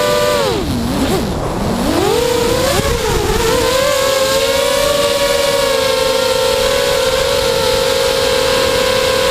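FPV quadcopter's electric motors and propellers whining. About half a second in, the pitch dips sharply as the throttle is eased off. It climbs back by about three seconds in and then holds a steady tone.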